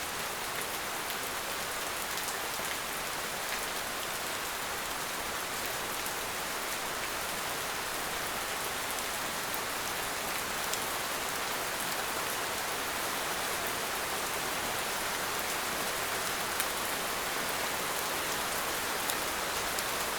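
Heavy rain falling steadily in a forest, a dense even hiss with scattered distinct drops pattering and dripping on leaves and surfaces.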